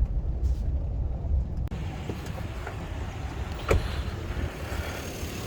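Chevy Silverado pickup engine idling with a low rumble, kept running for a head-gasket check. The sound changes abruptly about a second and a half in, and there is one sharp click near the middle.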